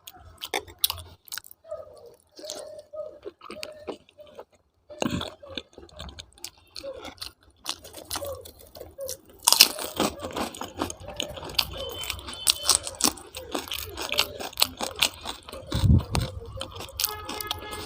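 A person chewing and crunching food close to the microphone, with scattered clicks of eating; the chewing gets denser and louder about ten seconds in.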